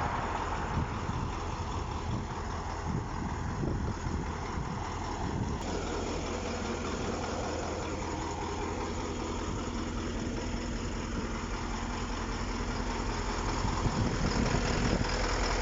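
KAMAZ 6520 truck's diesel engine running steadily, freshly overhauled and being run in; it grows a little louder near the end.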